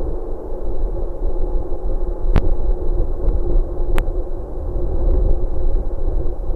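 Wind rumbling steadily on an outdoor nest-box camera microphone, with a faint steady high-pitched whine and two sharp clicks about two and a half seconds and four seconds in.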